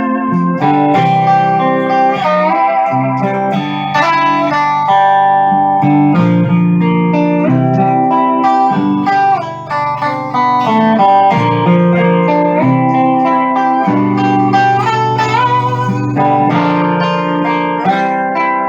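Home-built triple-neck steel guitar played on its six-string G-tuned neck: an instrumental run of sustained chords and melody notes, with notes sliding up and down in pitch under the steel bar.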